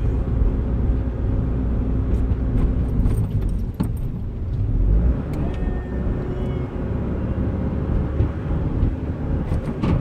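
Steady engine and road noise heard from inside a moving vehicle's cab, with a few light clicks and rattles.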